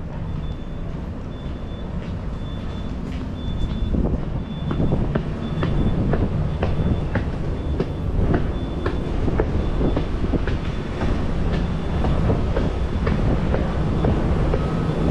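Footsteps climbing hard stairs over a steady low rumble from about four seconds in. Before that and into the middle, a short high electronic beep repeats about twice a second.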